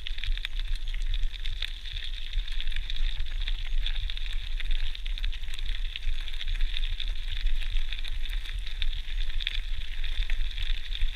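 GT Outpost Trail mountain bike riding over a gravel track: the tyres give a steady crackling crunch dotted with many small clicks and knocks from stones and the rattling bike, over a low wind rumble.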